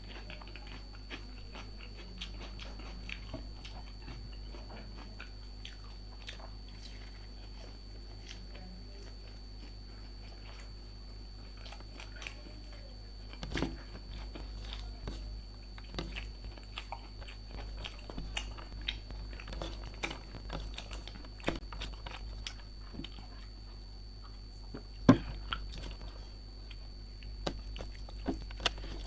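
A person chewing and biting food close to the microphone, with wet mouth sounds and crunchy bites scattered throughout; one sharp, loud crunch comes near the end.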